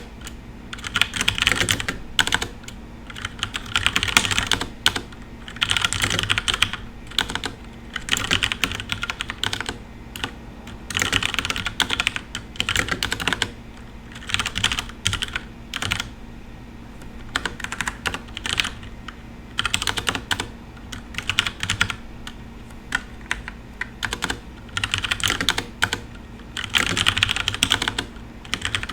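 FILCO Majestouch Ninja Tenkeyless mechanical keyboard with brown switches being typed on in short, fast bursts of keystrokes, each about a second long, separated by brief pauses.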